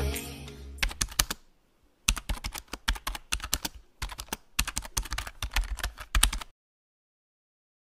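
Computer keyboard typing sound effect: runs of rapid key clicks in bursts with short pauses, stopping abruptly about two-thirds of the way through.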